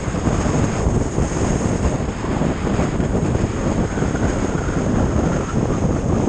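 Motorcycle cruising at road speed: a steady rush of wind over the microphone mixed with engine and road noise.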